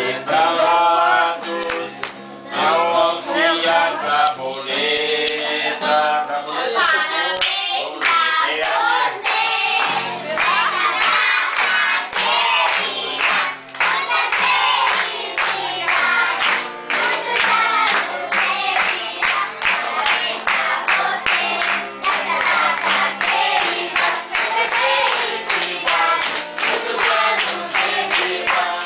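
A crowd of party guests, adults and children, singing the birthday song together, with rhythmic clapping from about eight seconds in.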